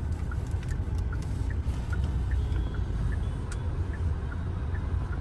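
Cabin noise inside a Hyundai Creta SUV on the move: a steady low rumble of road and engine. A light ticking repeats about three times a second.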